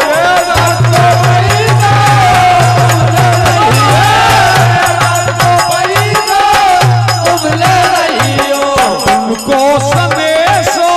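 Live Indian devotional bhajan music: a wavering melody line over hand drums and jingling, rattling percussion, with a low note that comes and goes.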